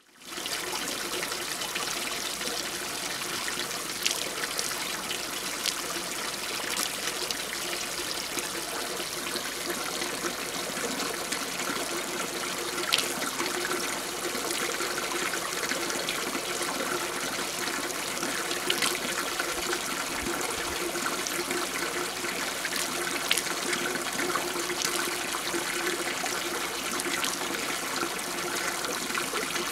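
Water piped in from a stream, left running out of a pipe spout and splashing onto a wet surface: a steady trickling splash with a few sharper splashes now and then.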